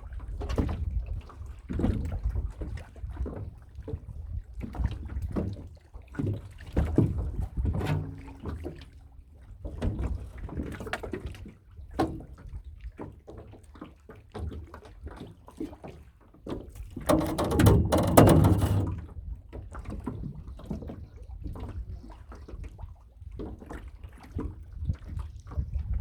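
Water splashing and irregular knocks on a small boat, with a louder rush of splashing about two-thirds of the way through.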